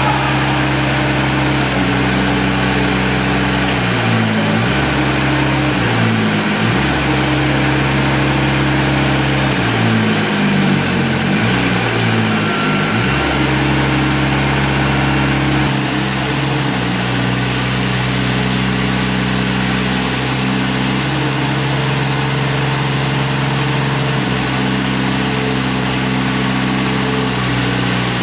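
A remote-controlled tracked demolition mini breaker's engine running steadily while driving its hydraulics as the boom unfolds. Its note sags briefly several times in the first half.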